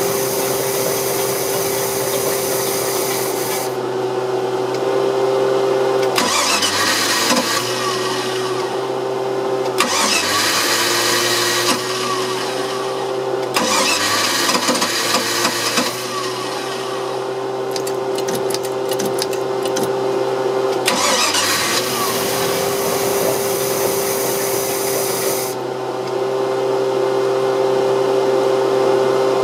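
OMC 5L V8 boat engine running, its speed sagging and picking back up several times: the rough running and stalling that is being diagnosed. A hiss comes and goes over it every few seconds.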